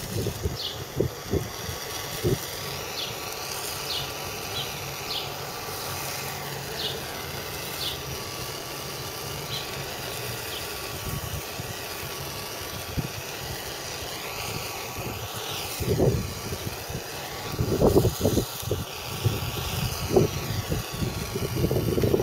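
Handheld gas blowtorch hissing steadily as it is played over feta in a pan to brown it. A few short bird chirps come in the first seconds, and gusts of wind buffet the microphone over the last several seconds.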